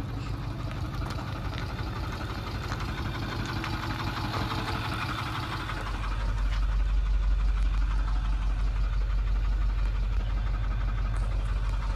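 A 2008 Ford F-450's 6.4-litre Power Stroke V8 turbo-diesel idling steadily with a diesel clatter. About halfway through, the low rumble gets louder as it is heard from inside the cab.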